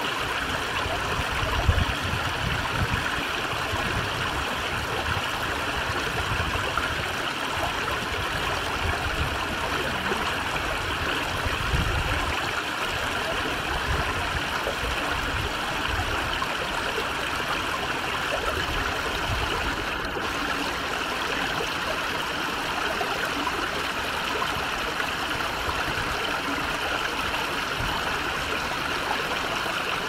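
Shallow water running steadily over stones in a small rock-lined stream, a constant babbling rush with an uneven low rumble underneath.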